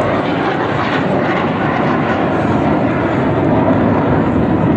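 Aircraft flying by: a loud, steady engine noise that swells slightly toward the end.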